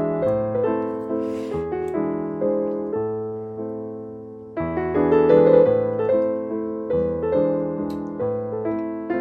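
Background piano music: a gentle melody over struck chords that fades gradually, then comes back in louder about four and a half seconds in.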